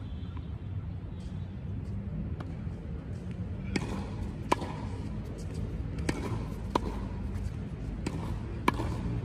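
Tennis ball being hit back and forth in a volley rally: about six sharp pops of ball on racket strings and court, starting about four seconds in, over a steady low rumble.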